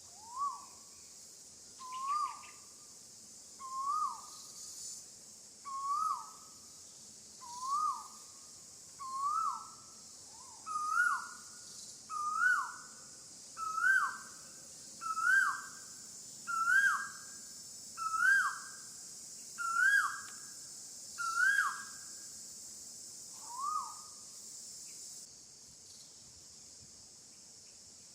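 A bird repeating a single hooked call note about every one and a half seconds, some fifteen times, the notes climbing in pitch and getting louder before the series stops near the end. A steady high insect drone runs underneath.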